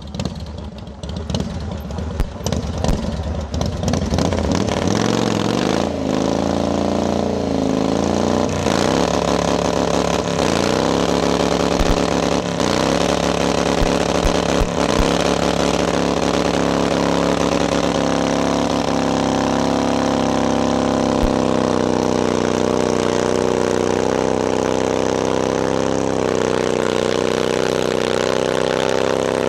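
Four-stroke motorcycle engine in a burnout: uneven revving at first, then several revs that dip and climb back, then held at steady high revs for the rest of the time with a hiss over it, the rear tire spinning on the pavement.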